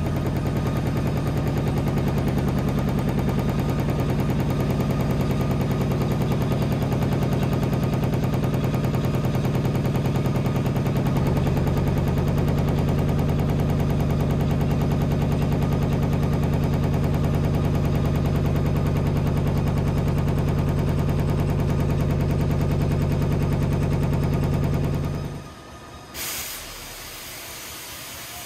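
Railside railcar shaker vibrating a steel hopper railcar to shake sand out through the bottom gate: a loud, steady, rapid metallic clatter that turns slightly deeper about eleven seconds in. It stops suddenly near the end, followed by a short burst of hissing air and then a steady hiss.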